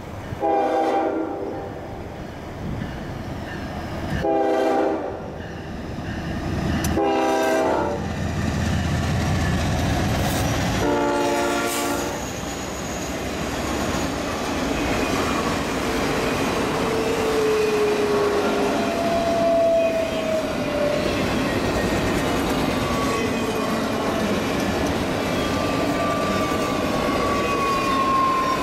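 Diesel freight locomotives sounding four blasts on the air horn as they approach, the last blast the longest. Then the locomotives and a string of autorack cars roll past with a steady rumble and clickety-clack of wheels over rail joints, and a few faint wheel squeals.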